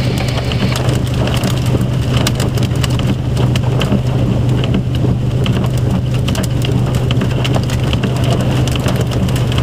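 Hailstorm: hailstones falling and striking hard surfaces in a dense, continuous patter of sharp clicks, over a steady low hum.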